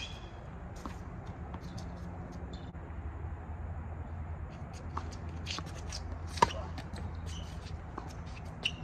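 Tennis ball being played on an outdoor hard court: one sharp racket-on-ball hit about two-thirds of the way through, among fainter scattered clicks and shoe scuffs, over a steady low hum.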